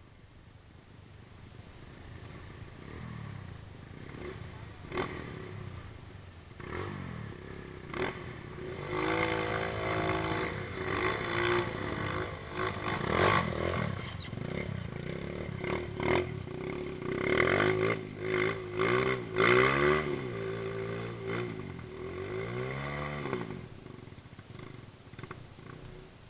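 A vehicle engine revving up and down again and again in uneven surges, as if working over rough trail ground, with a few sharp knocks in the first several seconds.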